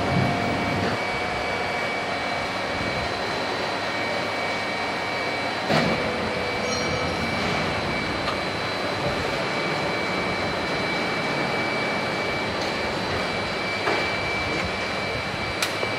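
Blow moulding machine running: a steady loud mechanical din with a constant high whine, broken by a sharp clack about six seconds in and two more near the end.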